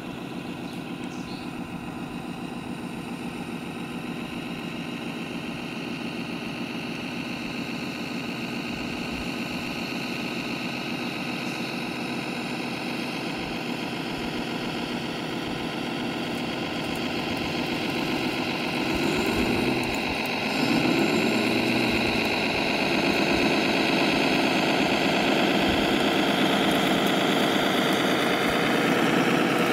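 RC scale truck running over rough ground: a steady engine-like drone with a high drivetrain whine, growing steadily louder as it nears. The pitch wavers and rises briefly about two-thirds of the way through.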